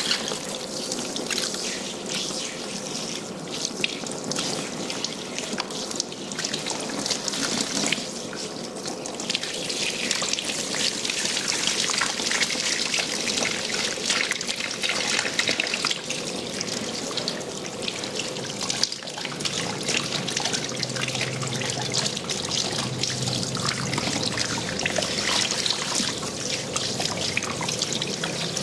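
Water spraying from a handheld salon shower head as a person's hair is rinsed over a shampoo basin: a steady hiss and splash that swells and eases a little as the spray moves over the head.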